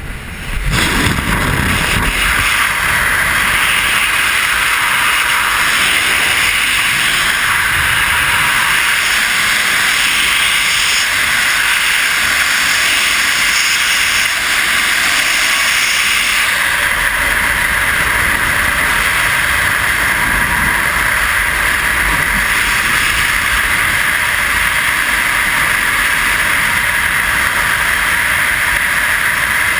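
Loud, steady rush of freefall wind buffeting a helmet-mounted camera's microphone, coming on suddenly within the first second as the skydiver leaves the aircraft.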